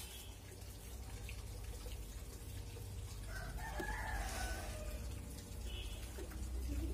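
A rooster crows once, a rising then falling call about three seconds in, over a low steady background rumble.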